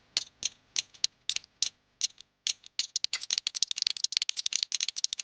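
Cartoon sound effect of small, sharp clicks: spaced out, about three a second, then from about halfway in they speed up into a fast, continuous clicking rattle.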